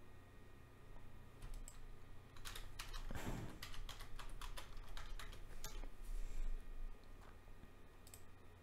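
Typing on a computer keyboard: a quick run of keystrokes and clicks, faint, over a steady low hum.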